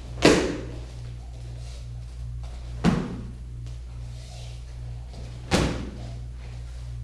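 Three sharp smacks of kicks striking a kicking pad, evenly spaced about two and a half seconds apart, over a steady low room hum.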